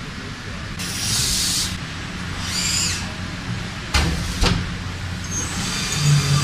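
WFL Millturn M60 CNC turn-mill machine running: a steady low hum, with two short hisses in the first three seconds and two sharp knocks about four seconds in.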